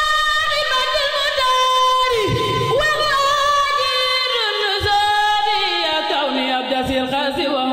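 A woman singing a khassida, a sung Arabic devotional poem, drawing out long held notes that slide down in pitch in a melismatic run.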